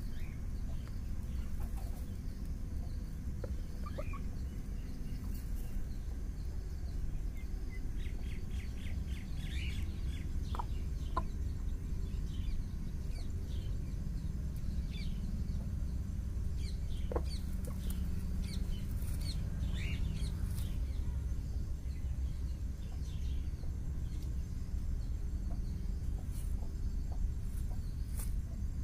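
Hens clucking in short, scattered calls over a steady low rumble; the hens sit on a straw nest, ready to lay.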